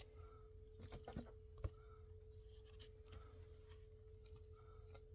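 Near silence: a faint steady hum, with a few soft clicks between about one and two seconds in, the loudest a single sharp tick, from comic books being handled and set down.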